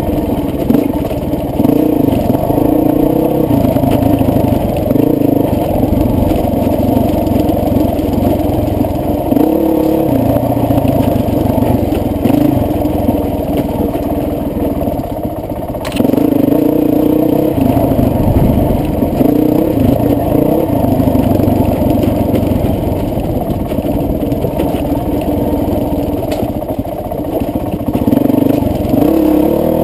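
Honda CRF450X four-stroke single-cylinder dirt bike engine under way, revving up and down over and over with the throttle. It gets suddenly louder about halfway through.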